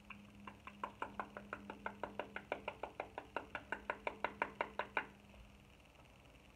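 Rapid light tapping on a setting-powder container, about six taps a second, growing louder and stopping about five seconds in.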